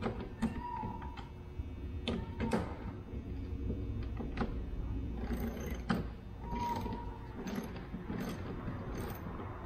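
Wrench tightening a nut on a landing-gear bracket bolt: irregular metallic clicks and knocks, with a few short squeaks, over a steady low hum.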